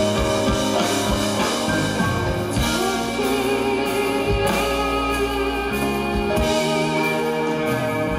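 Band music with guitar and drums playing steadily.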